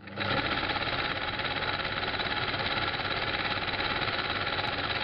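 A machine running steadily with a fast, even rattle.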